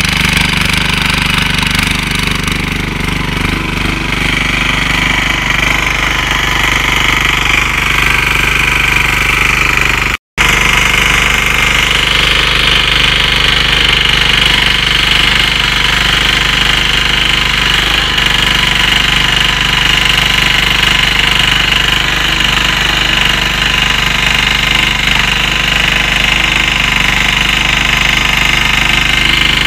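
Engine of a Yağmur YET-510 walk-behind rotary tiller running steadily under load as its tines churn soil. There is a split-second break about ten seconds in.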